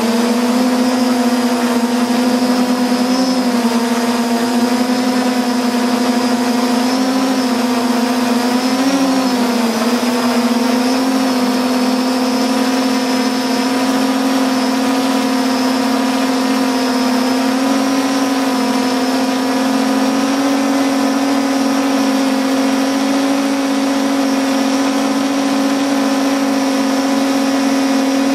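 Multirotor drone's electric motors and propellers humming steadily, heard close from the drone's own onboard camera. The pitch wavers briefly about nine seconds in as the motor speed changes, then holds steady.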